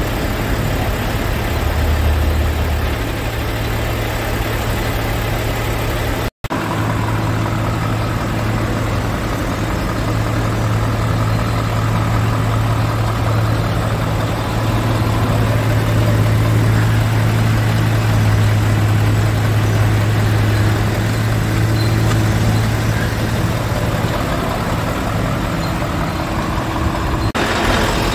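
Scania R V8 diesel truck engine idling steadily, with a split-second dropout about six seconds in.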